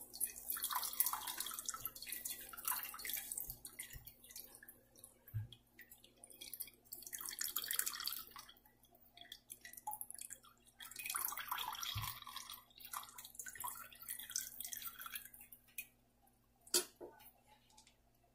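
Whey dripping and trickling in uneven spurts from a cloth bundle of strained curdled milk (chhena) into a glass jug already holding whey.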